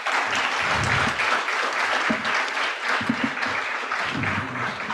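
Audience applauding, a steady clapping that continues through the whole stretch.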